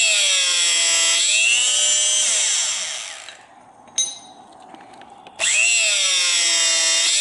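Ogura portable electric-hydraulic rebar cutter running twice on 16 mm rebar. Each time the motor whine sags in pitch under the cutting load, then recovers. The first run winds down about three seconds in, a single sharp click follows, and the motor starts again near the end.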